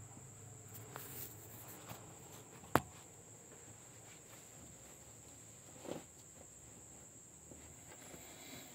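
Small handling sounds of parts and tools on a workbench: a few faint clicks, one sharp click a little under three seconds in, and a soft knock near six seconds, over a steady faint high-pitched whine.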